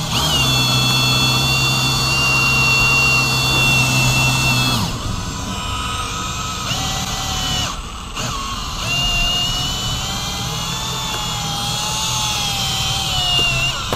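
Cordless drill driving a Ring Cut wire cut-out winder, whining as it reels in the cutting line to cut out a windshield. It runs steadily for about five seconds, stops, comes on in two short spurts, then runs again for about five seconds with its pitch rising and falling slightly.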